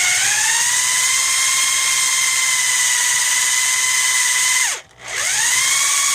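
Electric drill run in reverse, its motor whining steadily as the bit melts its way through tough plastic rather than cutting it. Near the end the whine drops away and stops for a moment, then spins back up.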